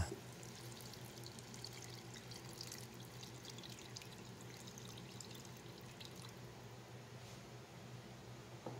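Beef broth poured into a pot of boiled beef chunks: a faint splashing pour that thins out after about six seconds.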